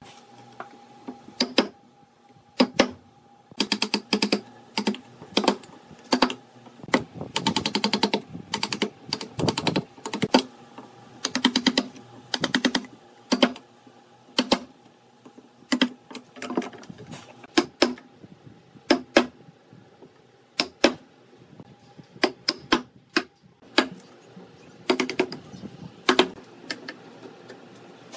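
Wooden mallet striking a chisel to chop out a bow-tie (butterfly key) recess across a crack in a wooden slab: sharp knocks, some single and some in quick runs of taps, with short pauses between.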